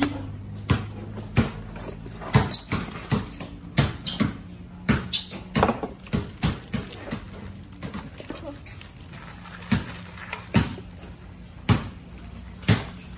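Irregular knocks and clatter of a plastic foldable push-up board and its cardboard box being handled and unpacked, over a steady low hum.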